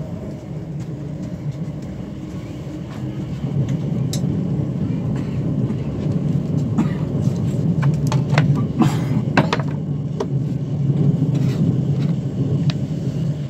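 Cabin noise inside an ICE 4 high-speed train car on the move: a steady low running rumble with scattered short clicks, growing somewhat louder about three and a half seconds in.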